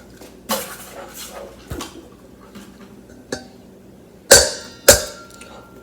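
An egg knocked twice against the rim of a mixing bowl: two sharp cracks about half a second apart near the end, followed by a brief faint ringing from the bowl. Softer handling clicks and a short breathy sound come before.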